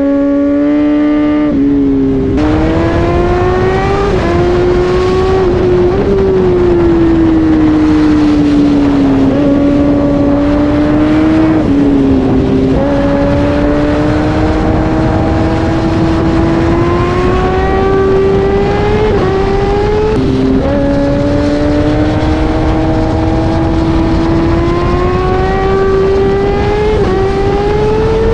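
Kawasaki Ninja ZX-10R's inline-four engine pulling through the gears under way: its pitch climbs slowly for several seconds at a time, then drops sharply at each upshift, about four times, over steady wind and road noise.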